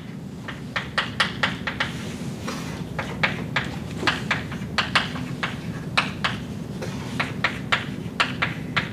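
Chalk writing on a blackboard: a run of sharp, irregular taps and clicks, several a second, as the chalk strikes and drags across the board, over a steady low room hum.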